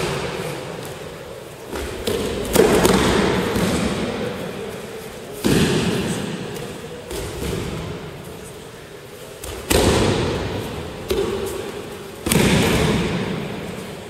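Bodies of thrown partners landing on the mat in breakfalls, four heavy thuds about three seconds apart with lighter ones between, each echoing in a large hall.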